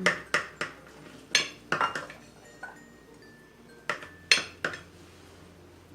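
Metal cutlery clinking against a plate: sharp clicks in three short clusters, near the start, around a second and a half in, and about four seconds in.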